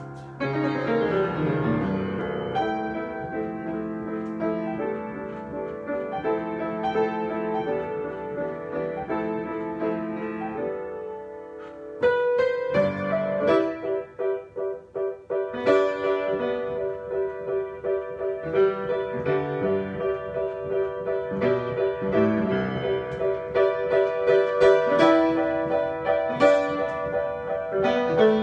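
Solo piano improvisation: slow, sustained chords, then about halfway through a sudden louder passage with repeated notes in the middle register over held chords.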